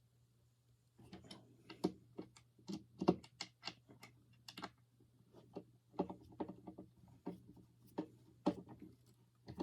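Skateboard truck hardware and a skate tool being handled: irregular light clicks and clinks of small metal parts, sometimes several a second.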